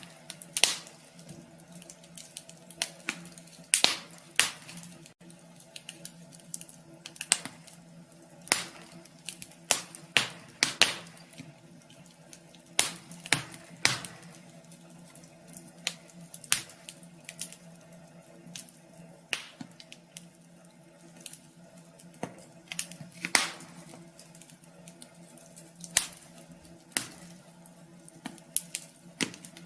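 Wood fire crackling in a wood stove: irregular sharp snaps and pops of burning logs. A faint steady low hum runs underneath.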